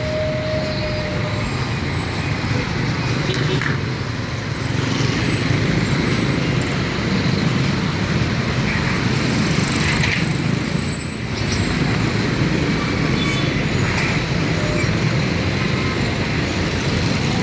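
Steady road traffic noise: engines and tyres of passing vehicles making a continuous low noise.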